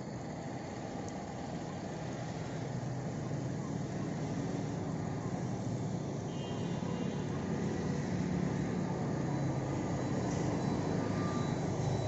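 Steady low outdoor background rumble with no distinct events, slowly growing a little louder.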